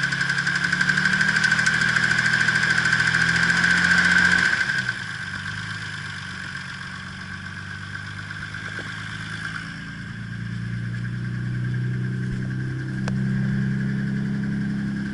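Nissan Skyline R32 GT-R's RB26DETT twin-turbo straight-six running with a knock, which the owner takes for rod knock and finds worse at higher revs, with oil pressure slightly low. It is held at raised revs, then drops back to a lower speed about five seconds in and picks up a little again near the end.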